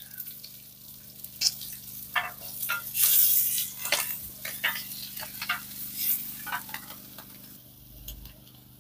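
Sausages and food sizzling on a hot camp griddle, with metal spatulas scraping and clicking against the griddle plate as the food is turned. The sizzling swells louder about three seconds in.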